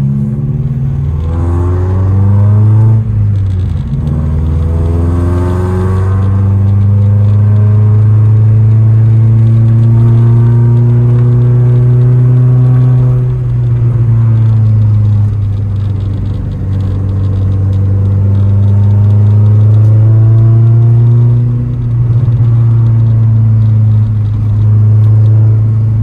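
Honda Civic engine heard from inside the cabin, pulling hard through the gears: the revs climb, drop at a gear change about three seconds in, and climb again. After that the car cruises steadily, the engine note easing off and picking up a few times.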